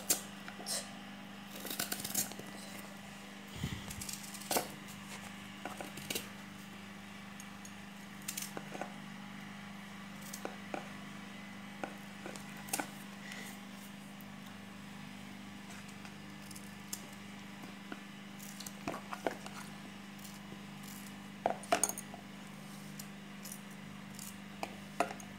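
Kitchen knife cutting pieces of firm unripe mango over a plastic bowl: irregular sharp clicks and taps as the blade cuts through and chunks drop into the bowl, over a steady low hum.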